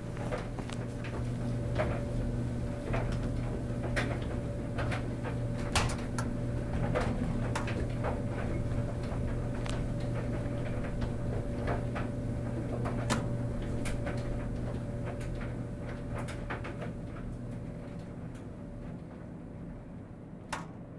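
Laundromat sounds: a steady machine hum with irregular clicks and knocks from dryer doors and laundry being handled, growing quieter near the end.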